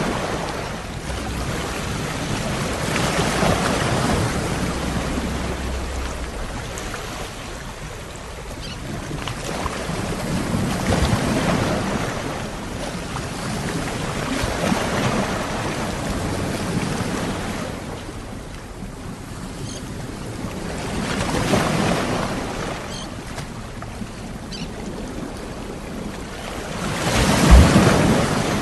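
Sea waves washing onto a shore, each surge swelling and falling away every several seconds, the loudest one near the end.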